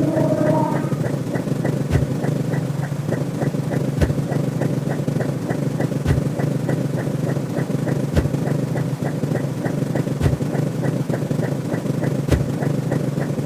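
Looping electronic sound-effect bed: a steady low hum, rapid faint ticking several times a second, and a soft low thud about every two seconds.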